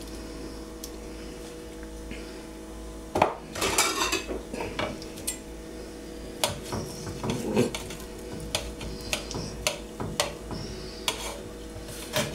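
Knife scraping and clinking against an enamelled metal baking tray as portions are cut and lifted out. A longer scrape comes about three seconds in, followed by scattered clinks and taps.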